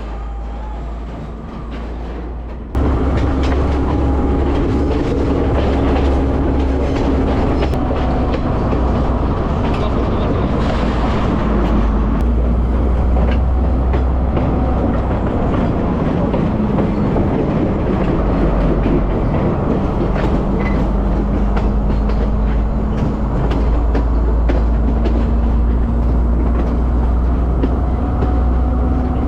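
Passenger train running along the rails: a steady low rumble with the clatter of wheels over rail joints, which gets abruptly louder about three seconds in.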